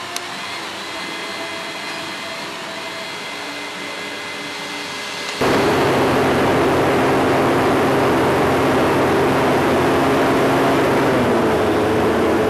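Machinery running with a steady hum and several faint steady tones; about five seconds in it cuts abruptly to a much louder, rougher machine drone that holds steady.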